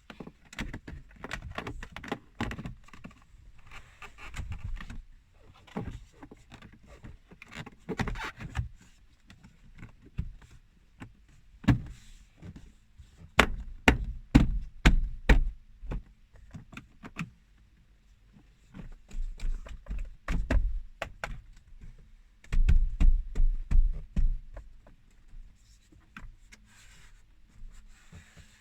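Plastic dashboard trim being handled and pressed back into place: a run of clicks, knocks and thumps, loudest in clusters about halfway through and again a few seconds before the end.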